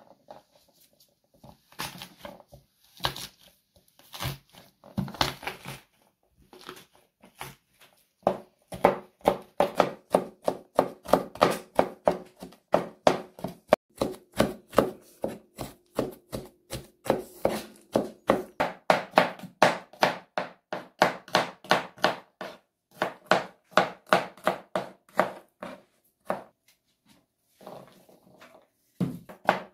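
Kitchen knife mincing peeled garlic cloves on a wooden cutting board. A few scattered knocks at first, then steady rapid chopping from about eight seconds in, about three strokes a second, which stops near the end.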